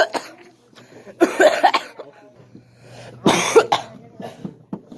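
A person coughing in two fits, one about a second in and another just after three seconds in, each a few coughs in quick succession.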